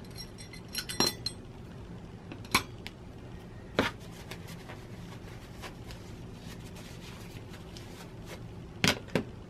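Small metal parts of a rotary cutter (blade, nut and screw) clinking against each other and the table as the cutter is taken apart by hand. A cluster of sharp clinks comes about a second in, single ones near two and a half and four seconds in, and two close together near the end.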